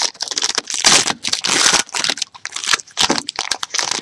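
Foil wrapper of a 2012-13 Panini basketball card pack crinkling as hands tear it open, a dense run of irregular crackles.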